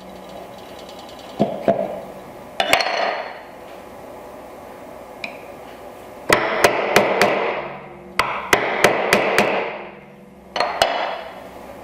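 Mallet striking a chisel to chop waste out of dovetail sockets in a tail board: short runs of quick sharp strikes, several to a run, with pauses between.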